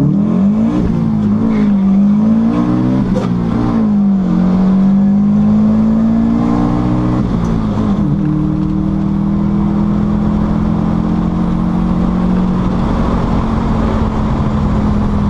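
Subaru flat-four engine in a drag-racing VW Beetle, heard from inside the cabin, pulling hard under full throttle down the strip. Its note climbs and falls back at each gear change over the first few seconds, climbs in one long pull, drops around eight seconds in, then holds a steady note.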